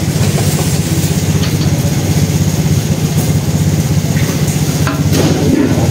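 A motor vehicle engine idling close by, a steady low running with an even pulse.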